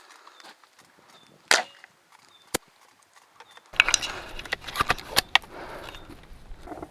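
A Tokyo Marui VSR-10 spring-powered bolt-action airsoft rifle fires once with a sharp crack about a second and a half in, followed by a single thinner click about a second later. From a little past halfway, wind buffets the microphone with scattered handling clicks.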